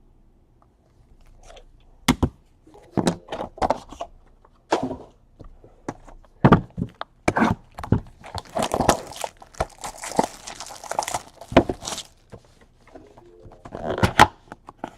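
Trading card packaging being opened and handled: a string of short knocks and thunks, with a stretch of crinkling and tearing about nine to twelve seconds in.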